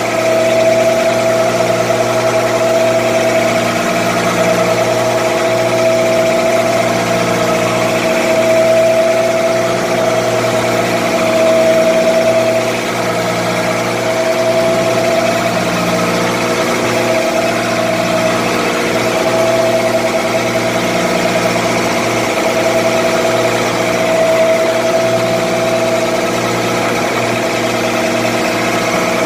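Fishing boat's engine running steadily under way at an even pitch, its tone swelling slightly every couple of seconds.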